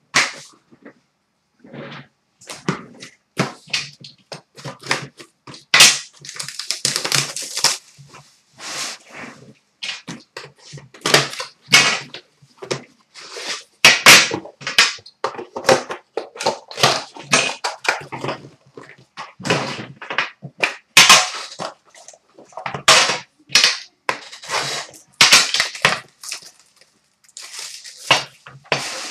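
Clear plastic shrink wrap being torn and crumpled off a trading-card box, with the box and packaging handled, in many sharp irregular crackles and rustles.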